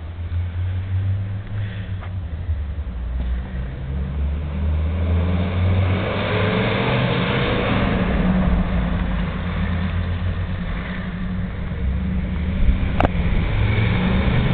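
Vehicle engines and road noise: a fire service van's engine running as it pulls away and drives off, with other traffic passing and the noise swelling in the middle. A single sharp click near the end.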